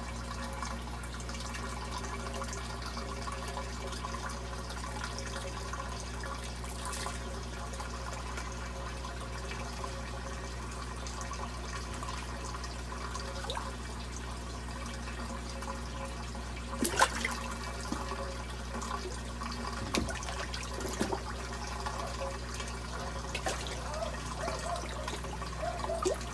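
Water running steadily into an aquaponics fish tank, an even trickling and splashing over a low steady hum, with a few short sharp splashes, the loudest about 17 seconds in.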